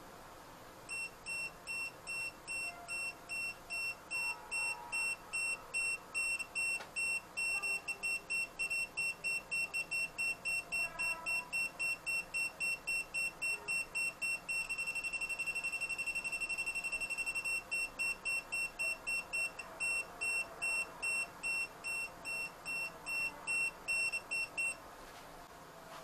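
UNI-T UT12M-EU non-contact voltage detector beeping with a high tone as it senses a live mains cable. The beeps quicken until they run together into an almost continuous tone, then slow again and stop near the end: the beep rate steps up and down with the strength of the detected voltage field.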